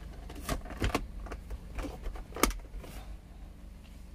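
Plastic car centre armrest being slid back and pressed down: a string of short clicks and knocks, the sharpest about two and a half seconds in, as the arm-rest section latches back into its original position.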